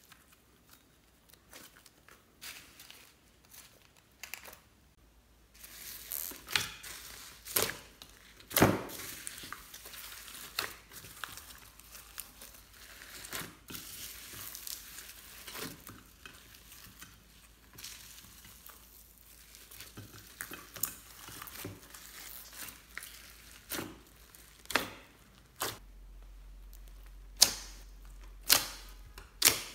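Slime being squished and kneaded by hand into foam beads and sprinkles, giving a steady crackle with many sharp pops and clicks. It is quiet for the first few seconds, and the crackling starts about five seconds in.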